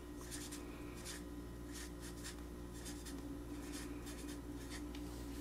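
Black felt-tip permanent marker writing a word on construction paper: a run of short, faint scratching strokes over a steady low hum.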